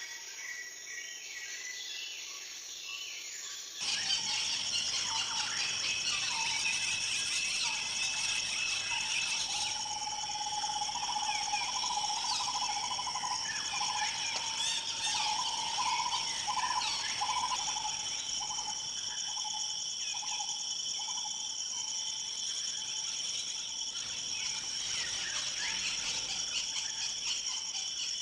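Birds calling and chirping over a steady high drone of insects such as crickets. The recording changes about four seconds in, after which it gets louder and fuller.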